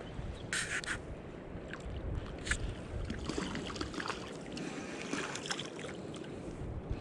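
Water sloshing and splashing around a hooked trout being played in shallow river water, with a few short hissing splashes, the clearest about half a second in, over a low rumble of handling on the camera microphone.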